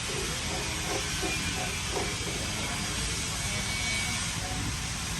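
Steady hiss of the knife grinder's abrasive wheel running against a high-speed steel planer knife on the cutterhead.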